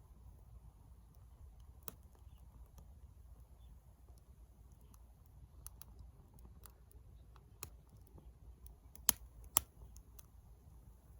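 Small wood fire crackling in a camp stove: sparse, irregular sharp pops, with two louder pops about half a second apart near the end.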